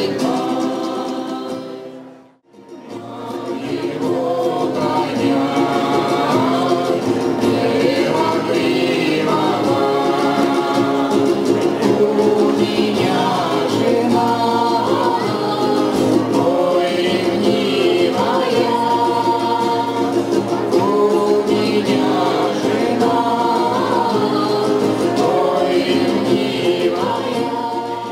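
Russian folk choir of women's voices singing in harmony, with acoustic guitar accompaniment. The music stops briefly about two seconds in, then the singing resumes and carries on.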